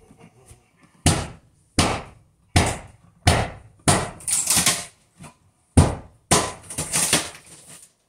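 Repeated hammer blows, starting about a second in at roughly one every three-quarters of a second, with faster runs of blows around the middle and again near the end.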